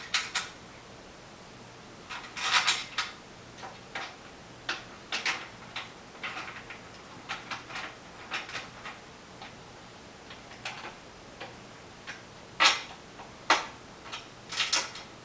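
Drum rack clamp hardware being tightened by hand: a run of irregular metal clicks and taps, with a few louder knocks about two and a half seconds in and again near the end.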